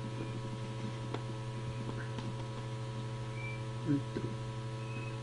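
Steady electrical mains hum, with a few faint clicks of cardboard being handled and a brief low sound just before four seconds in.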